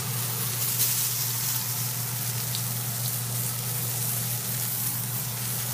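Salsa-dipped pambazos frying in hot oil in a large nonstick pan, a steady sizzle with a few small crackles of spitting oil. A steady low hum runs underneath.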